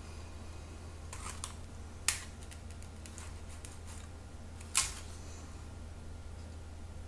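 Small clicks and taps from handling plastic paint cups and a plastic paint bottle, with two sharper knocks about two seconds in and near five seconds, over a low steady hum.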